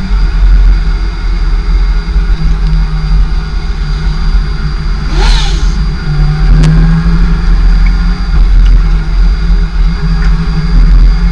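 Kawasaki ZX-6R's inline-four engine running steadily under way at moderate revs, picked up close by a camera mounted on the bike. About halfway through there is a brief sweep in pitch up and back down, followed by a single click.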